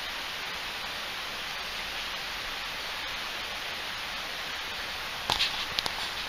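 Steady rushing hiss of flowing river water, with a quick cluster of brief sharp sounds about five seconds in.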